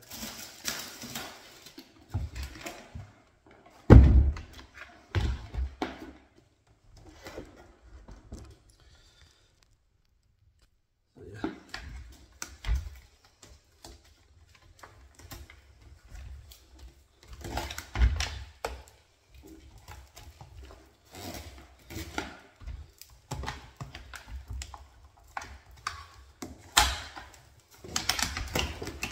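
Plastic parts of an electric paint sprayer and its corrugated hose being handled and fitted together: scattered clicks, knocks and rustles, with one loud thump about four seconds in.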